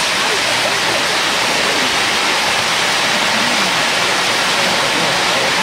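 Tezutsu (hand-held bamboo-tube fireworks) jetting fountains of sparks: a loud, steady hiss with no breaks.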